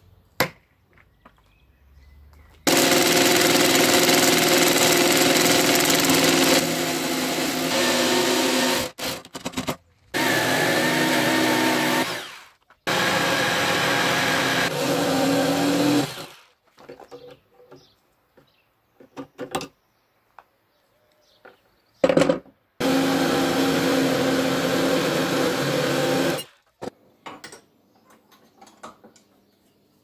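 Electric jigsaw cutting a flat steel bar, run in four bursts of a few seconds each with short pauses between.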